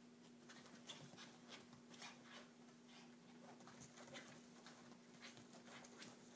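Faint scratching and scuffling of a small dog's paws scrabbling on fabric sofa cushions, in quick irregular scrapes and taps.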